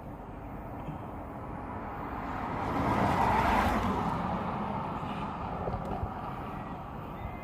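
A vehicle passes by over steady outdoor background noise, its sound building to a peak about three seconds in and then fading away.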